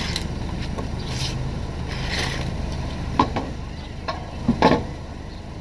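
Van wheel and tire being handled and lifted onto the hub, with a few scrapes and then several sharp clunks, the loudest near the end, over a steady low vehicle rumble.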